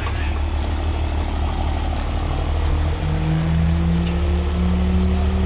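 Diesel pickup engine running with a steady low rumble; about halfway through a pitched tone comes in and slowly rises as the revs climb.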